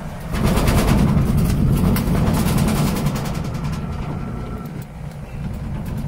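Electrolux top-loading washing machine's motor starting up and driving the belt and transmission pulley in a spin test. It makes a loud, low whir with a fast rattle in it, starts about a third of a second in, and eases off gradually. The motor has the strength to start a spin.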